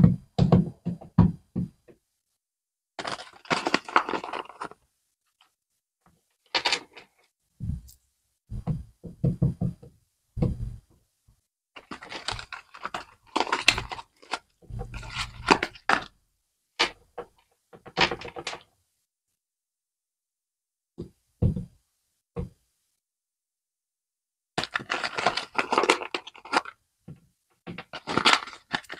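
Plastic packaging of a pack of Barbie doll shoes handled and pulled open by hand: separated bursts of crinkling, crackling plastic with knocks and thunks. In the first two seconds, a quick run of small hard taps, the doll's plastic shoes tapping on the table.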